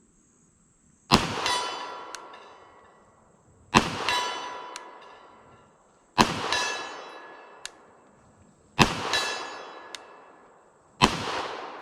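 Five 9mm pistol shots from a Canik TP9 SFX, fired at an even pace about two and a half seconds apart. Each shot is followed by a fading ring, most with the metallic tone of a steel silhouette target being hit at long range.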